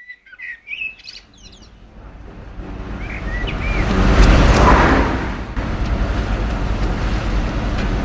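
Birds chirping in open countryside, then an old saloon car approaching and passing close by, its engine and tyre noise building to a peak about four seconds in. After a sudden drop the car's engine runs on as a steady drone.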